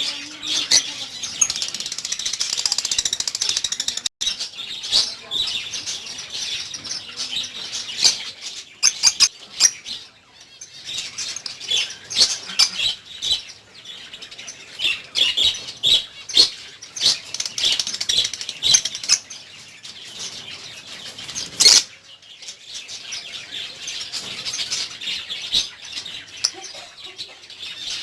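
Lovebirds chattering with rapid, high, shrill chirps, mixed with short bursts of wing flapping.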